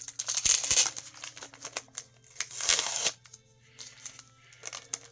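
Crinkling and rustling of comic book packaging being handled, in two loud bursts about half a second in and again just before three seconds, with light clicks and taps between.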